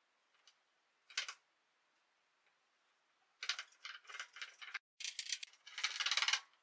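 A skeleton marionette clattering and rattling against the stage floor as it dances on its strings: one brief clatter about a second in, then rapid rattling from about three and a half seconds, cut off briefly near five seconds and running on faster until near the end.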